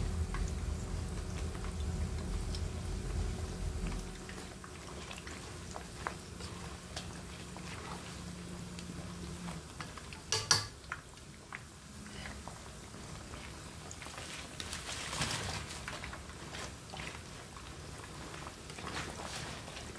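Battered sweet potato slices deep-frying in a wok of hot oil, the oil sizzling and crackling steadily. A single sharp knock comes about ten seconds in, and the sizzling grows louder in stretches later on as more pieces go into the oil.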